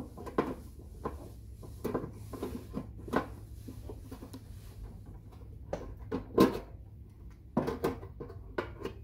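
Scattered clicks and knocks of a metal part being handled and fitted into the linkage under an industrial sewing machine's table, the loudest knock about six and a half seconds in and a quick cluster near eight seconds.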